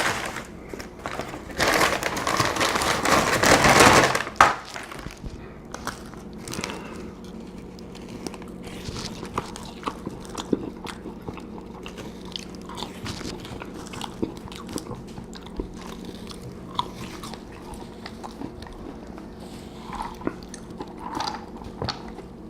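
Close-miked eating of a Burger King fast-food meal: a loud, noisy crunch or rustle for a couple of seconds near the start, then steady chewing with many small wet clicks and crunches.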